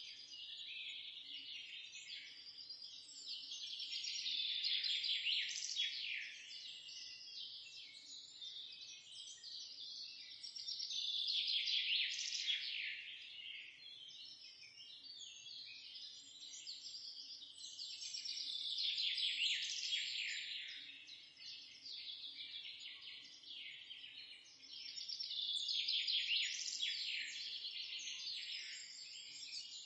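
Birdsong: dense, rapid high chirps from several birds, swelling into louder bouts about every seven seconds.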